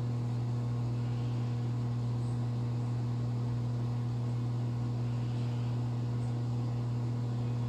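A steady low hum over a faint even hiss, with no change in pitch or level, the kind of drone a running fan or appliance motor gives.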